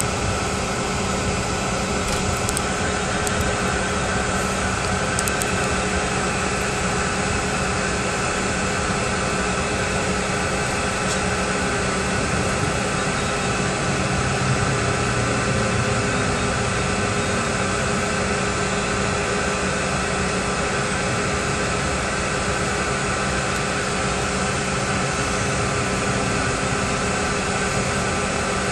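Cabin noise of a CRJ regional jet taxiing: its jet engines at low thrust and the cabin air system making an even rush with several steady hums and tones.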